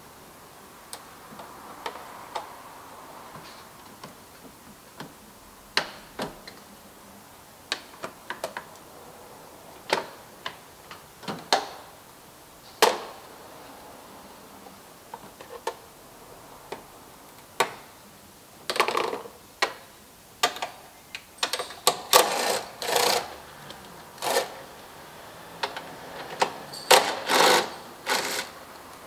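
Irregular clicks and knocks of hands and a tool working loose plastic engine-bay ducting, covers and clips, sparse at first. Denser rattling clatter follows in the second half as the plastic parts are pulled free.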